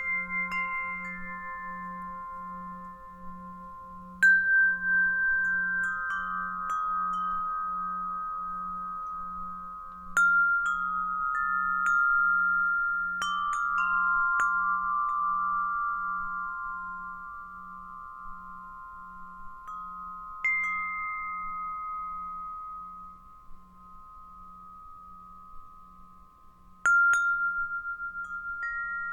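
Gregorian alto wind chimes: a few metal tubes are struck together every few seconds and each note rings on for several seconds, clear and bell-like. Under them a singing bowl holds a low hum that pulses steadily about once a second.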